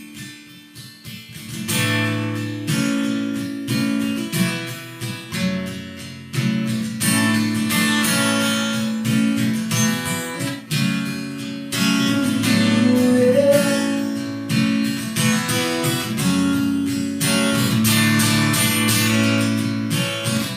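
Acoustic guitar intro played solo: picked and strummed chords beginning about two seconds in, after a brief quiet.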